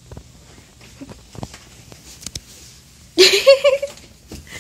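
Faint scattered taps and rustles, then about three seconds in a short, loud, high-pitched vocal sound from a person, wavering in pitch, lasting under a second.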